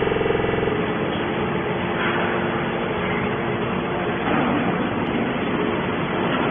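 Hydraulic aluminium can baler running, a steady machine noise. A hum with a clear pitch stands out for the first second, then gives way to an even mechanical rush.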